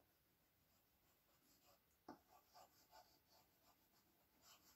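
Faint chalk writing on a blackboard: a string of soft scratching strokes, with one slightly sharper tap about two seconds in.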